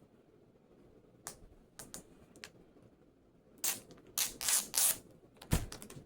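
Plastic shrink wrap being picked at and pulled off a DVD case: a few scattered clicks, then a couple of seconds of crinkling rustle, and a sharp knock followed by quick clicks near the end.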